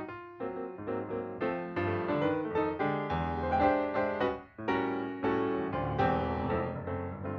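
Background music played on piano: a steady stream of struck notes over a low bass line, with a brief pause about four and a half seconds in.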